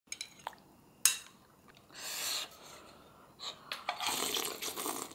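A metal spoon clinks and scrapes against a ceramic soup bowl, with a sharp clink about a second in. There are two longer stretches of soft breathy noise.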